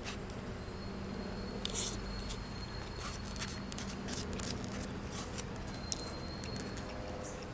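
Chopsticks and a plastic spoon clicking and scraping against a plastic takeaway food container while picking at food, scattered small ticks over a steady outdoor background hum.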